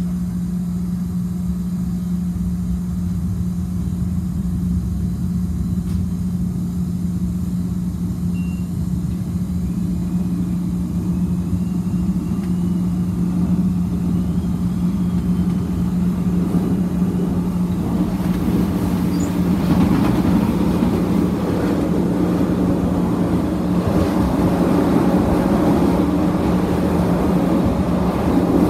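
Inside a CTA 2600-series 'L' railcar: a steady low hum while the car stands, then the train gets under way with a faint rising whine. The rumble of wheels on rail grows louder as it picks up speed, from about two-thirds of the way in.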